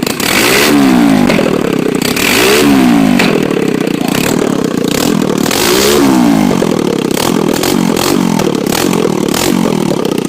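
Small motorcycle engine revved repeatedly, its pitch climbing and falling with each blip of the throttle, with the biggest revs about a second in, at about two and a half seconds and at about six seconds.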